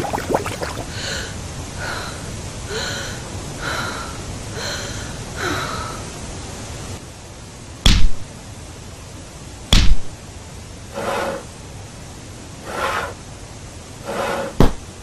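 Plastic bags crinkling at the start. Later come three very loud, sharp smacks from the red spring-loaded paddle of a cardboard cat maze swinging and hitting: one about 8 seconds in, another two seconds later, and a third near the end.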